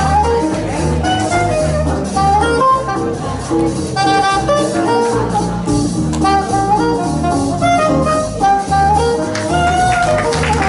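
Music playing: a melody line of held notes over a steady, repeating bass beat.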